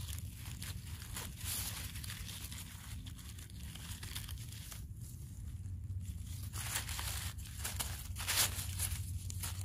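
Dry fallen leaves and twigs rustling and crackling in irregular short bursts as a gloved hand digs a small mushroom out of the leaf litter, over a steady low rumble.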